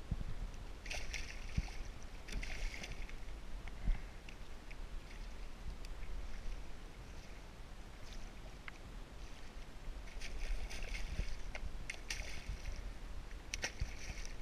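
Splashing of a hooked stingray thrashing at the water's surface beside a kayak, in bursts: one a second or so in, a quieter stretch, then more splashing near the end. There is a steady low rumble underneath.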